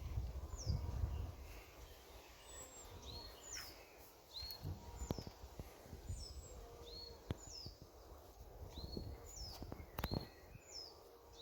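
Birdsong in woodland: a small bird repeats a two-note phrase about once a second, a high falling note followed by a lower hooked one. Low wind rumble on the microphone and a few sharp clicks sit underneath.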